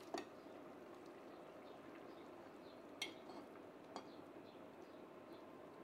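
A metal spoon scraping browned beef chunks off a china plate into a pot, with a few sharp clinks of spoon on plate over a faint steady hiss.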